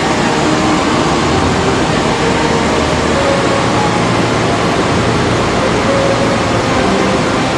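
Flash-flood torrent rushing down a valley channel: a loud, steady roar of water carrying mud and debris.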